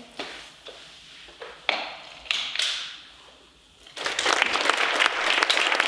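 A few brief scrapes and knocks, then about four seconds in an audience suddenly starts applauding, a dense clatter of many hands clapping.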